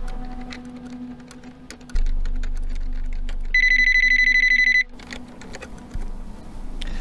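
Computer keyboard typing in quick clicks. About three and a half seconds in, a desk telephone gives one warbling electronic ring lasting just over a second.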